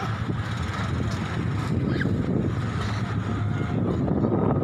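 Steady low rumble of road traffic from an elevated highway overhead.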